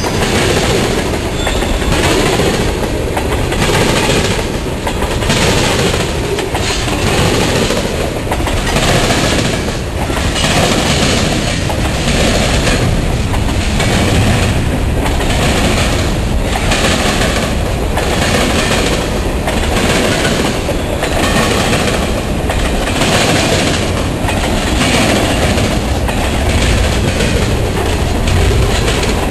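Freight train of tank cars, covered hoppers and boxcars rolling past, loud and steady. The wheels click in a regular rhythm over the rail joints.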